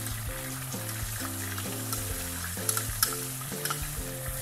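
Hot oil sizzling in a frying pan as ground spices fry in it and turmeric powder is sprinkled in, with scattered crackles and two sharper pops about two-thirds of the way in. Background music plays underneath.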